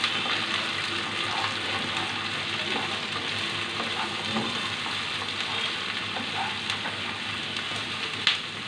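Freshly added chopped onions and garlic sizzling steadily in hot oil in a nonstick pan while being stirred with a spatula, with small scraping ticks. One sharp knock comes near the end.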